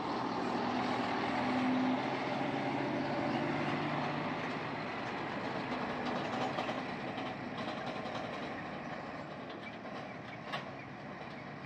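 Loaded Scania semi-trailer truck's diesel engine pulling away past the listener and driving off down a dirt road. The engine is loudest about two seconds in and fades slowly as the truck moves away, with tyre and trailer noise on the dirt surface.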